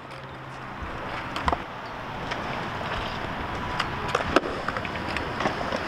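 Skateboard wheels rolling on a concrete skatepark surface, a steady rolling noise that grows slightly louder, with a few sharp clacks, the strongest about four seconds in.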